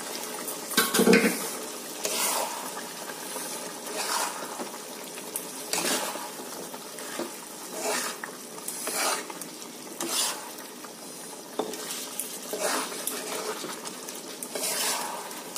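Long steel spatula stirring and scraping chicken curry and potato chunks around a wok over a steady sizzle, the strokes coming every second or two, with a louder knock about a second in. The chicken is being fried down with yoghurt (kosha), with no water added.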